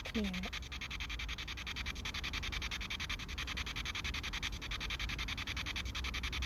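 P-SB7 Spirit Box radio sweeping the FM band, a steady hiss of static chopped into rapid even pulses as it jumps from frequency to frequency every 100 ms.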